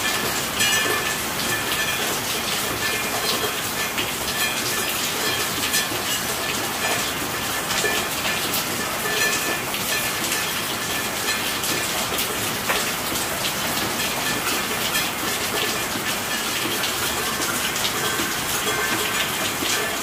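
Steady, heavy rainfall: a dense, even patter of drops that keeps up unbroken.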